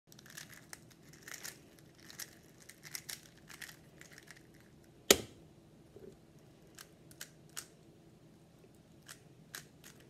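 Plastic Rubik's cube being turned quickly by hand: a run of quick clicks and rattles as the layers are twisted, one much louder sharp clack about five seconds in, then scattered single clicks.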